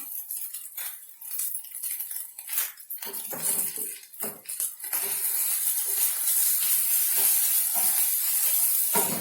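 Fried rice being stirred in a frying pan: a spatula scraping and knocking against the pan, with frying sizzle that becomes a steady hiss about halfway through.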